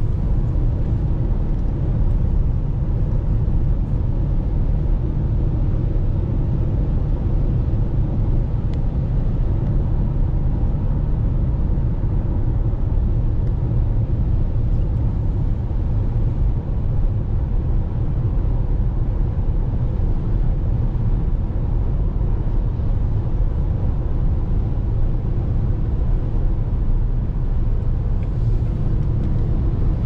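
Steady low rumble of an SUV's road and tyre noise and engine at highway speed, heard from inside the cabin.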